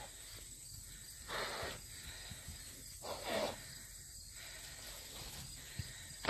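Quiet pasture ambience: a faint steady high trill of insects, with two short breathy hissing bursts about a second and a half apart.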